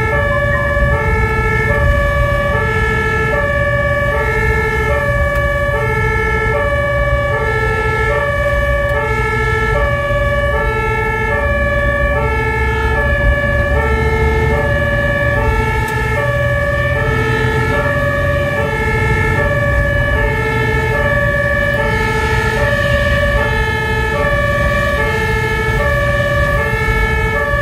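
Two-tone German fire engine siren (Martinshorn) sounding continuously, switching back and forth between a high and a low note held for well under a second each, heard from inside the HLF 20 fire engine's cab. Underneath run a steady high tone and the low rumble of the truck's engine and tyres on the wet road.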